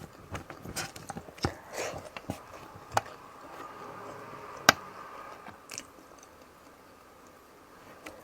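Close-miked eating sounds: wet chewing and lip smacks of a mouthful of fish stewed in coconut milk, with sharp clicks. These are busiest over the first five seconds, with one loud click just under five seconds in, and quieter toward the end.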